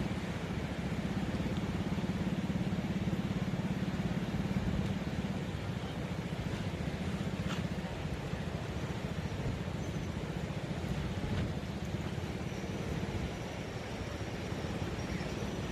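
A steady low rumble, with one faint click about halfway through.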